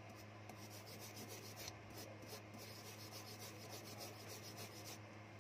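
Brush bristles scrubbing rapidly back and forth over a phone circuit board and its metal shield: a faint, quick scratching of many short strokes that stops near the end. A steady low electrical hum runs underneath.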